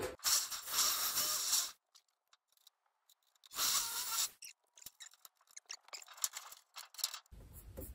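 Thin aluminium sheet scraping and rubbing as it is handled, in two short bursts a couple of seconds apart, followed by a few light clicks and taps.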